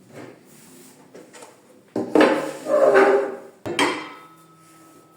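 Kitchen pots and dishes being handled and set down, clattering twice. The second is a sharp knock about three-quarters of the way through, followed by a lingering metallic ring.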